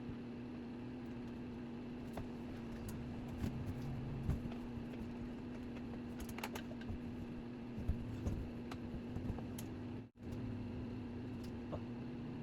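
A steady low hum with scattered light clicks and small knocks, and a brief dropout to silence about ten seconds in.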